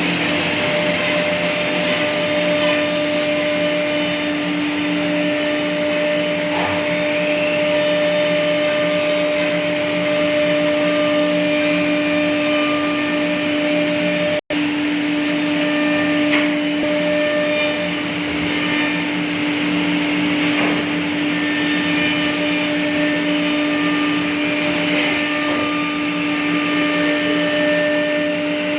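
Three-spindle CNC wood router running, its spindle giving a steady hum over a broad rushing noise. The sound cuts out for an instant about halfway through.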